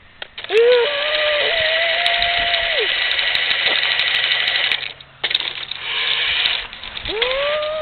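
Remote control monster truck's electric motor and gears whining at full throttle, with a few sharp clicks; the whine cuts out briefly about five seconds in, comes back, then fades after about six and a half seconds.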